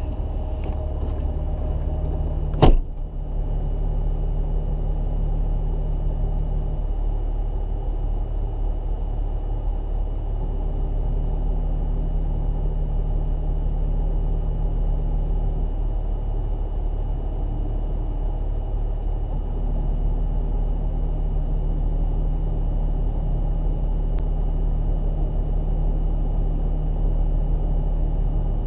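Jeep Wrangler engine heard from inside the cab, running at low revs as the vehicle idles and creeps forward, its hum rising and falling slightly with the throttle. A single sharp knock about two and a half seconds in is the loudest sound.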